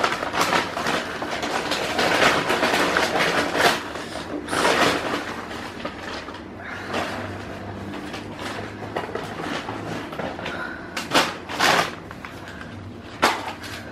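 Paper takeaway bag and food packaging rustling and crackling as the items are taken out, with a few sharp knocks near the end as things are set down.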